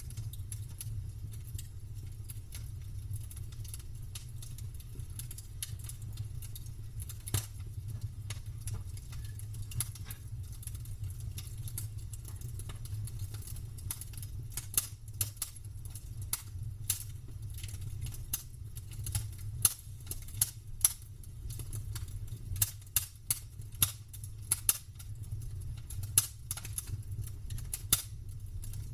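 Campfire crackling, wood snapping and popping over a low steady rumble of the burning fire. The pops come more often and sharper in the second half.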